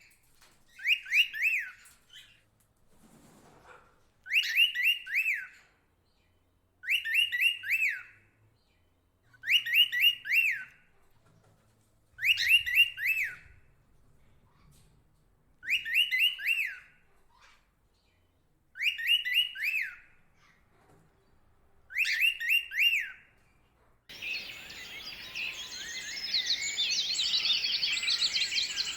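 A single bird repeating the same short song phrase of several quick, sliding whistled notes, about every three seconds, eight times. About 24 seconds in it cuts abruptly to a dense chorus of many birds calling over a steady hiss.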